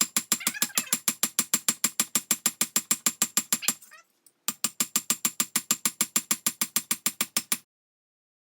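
Rapid, evenly spaced hammer blows on steel, about five a second, each ringing. The blows pause briefly about four seconds in, resume, then stop abruptly shortly before the end.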